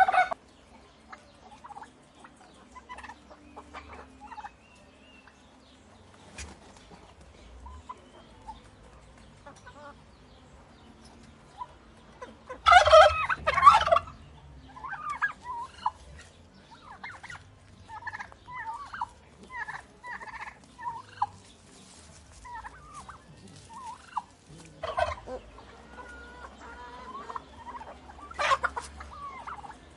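Turkeys gobbling: a loud gobble about halfway through, two more near the end, with scattered softer short calls in between and quieter gaps.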